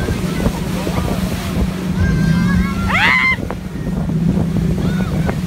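Pontoon boat under way, its motor running with a steady hum while wind buffets the microphone and water rushes past the hull. About three seconds in, a person gives a short high yell that rises sharply in pitch.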